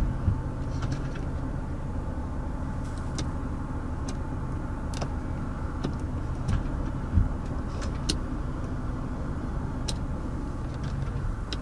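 Steady low hum of the 2015 Mazda 6's engine idling, heard from inside the cabin. Scattered single clicks come from the power mirror switch being worked and the side mirror motor moving the glass.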